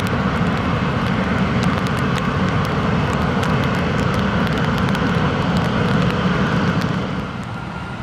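Jet engines of a Japan Airlines Boeing 737-800 running at taxi power as the airliner rolls slowly toward its parking spot: a steady rumble and hiss that drops in level about seven seconds in.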